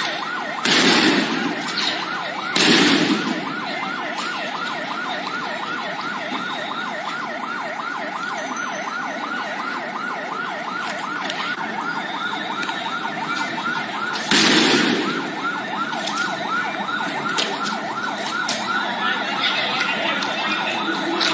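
Vehicle siren in a fast yelp, warbling rapidly and steadily several times a second. Three loud, short bursts of noise cut across it: about a second in, near three seconds, and again about fourteen seconds in.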